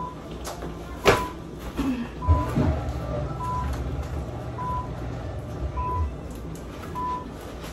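A short, high electronic beep repeating about once a second. A sharp knock comes about a second in, and a low rumble runs through the middle.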